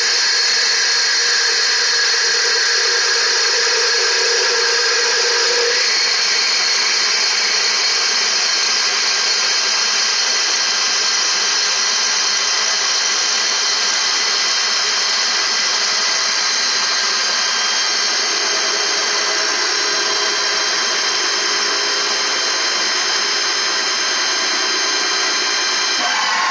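CNC lathe running under power, its spindle turning brass bar stock while the turning tool cuts it: a loud, steady machine whine with several high tones. A lower tone drops out about six seconds in, and the sound changes abruptly near the end.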